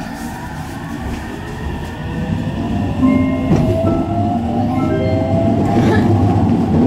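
Aichi Loop Railway electric train accelerating: the whine of its inverter-driven traction motors rises steadily in pitch while the running noise grows louder, with a few knocks from the wheels on the rail.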